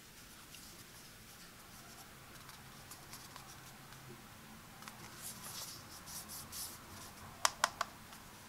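Fingers rubbing and turning the plastic charging case of Bose Sport Earbuds, a soft scratchy friction, then three sharp clicks against the case in quick succession near the end.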